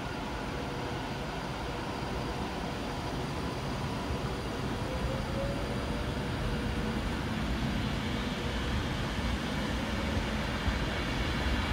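Class 390 Pendolino electric train pulling out of the station: a steady rumble and hiss that slowly grows louder, with a faint rising whine about five seconds in.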